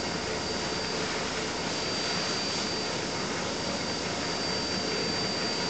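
Steady background hiss with a thin, high continuous whine, like a running fan or machine noise.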